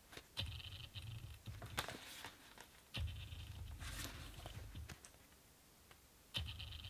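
Faint rustling and light flicks of paper as the pages of a paperback manga are leafed through. Under it, a faint hum cuts in and out abruptly several times.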